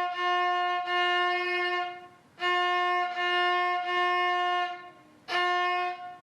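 Violin bowing the same single note again and again in about six long strokes, with short breaks between them and no change of pitch.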